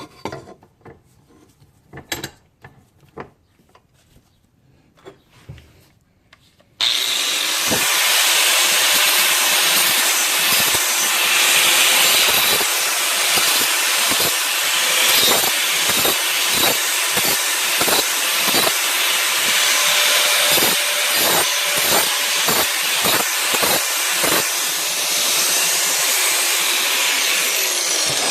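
A power tool grinding down the rough cut end of a 2.5-inch steel exhaust pipe to square it up. It starts abruptly about seven seconds in and runs steadily for about twenty seconds, then winds down at the end. A few light clicks of handling come before it.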